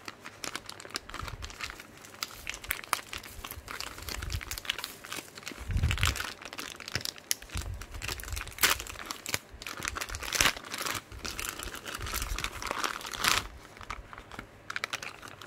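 A clear plastic packaging bag crinkling and rustling as hands unwrap a charging adapter and its cable, with a few soft thumps of handling about six and eight seconds in.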